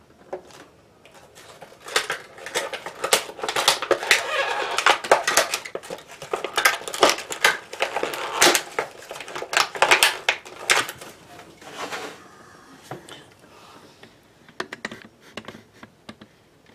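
Stiff plastic clamshell packaging crackling and clicking as it is handled and pried apart. The crackling is dense through most of the stretch and thins to scattered ticks over the last few seconds.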